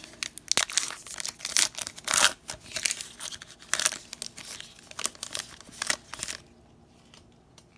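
Plastic wrapper of a baseball card pack being torn open and crinkled, a dense run of crackles that stops about six and a half seconds in.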